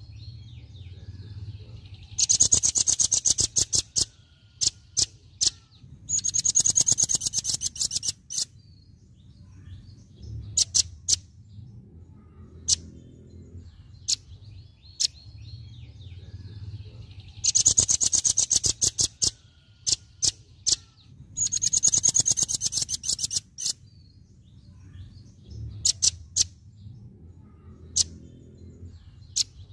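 Velvet-fronted nuthatch (rambatan paruh merah) giving its rapid 'tembakan' call: four fast trills of sharp, high notes, each about two seconds long, with single sharp chips between them.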